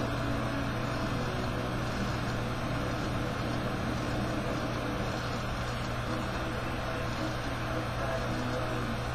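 A steady low droning hum with a hiss over it and a few faint held tones, with no distinct events, coming from the television's soundtrack.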